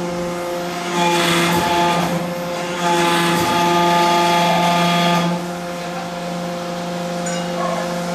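Hydraulic press running with a steady hum, louder and harsher during the pressing stroke from about three to five seconds in, as its dies press stainless steel tube into half-pipe; the hum settles lower once the ram lifts.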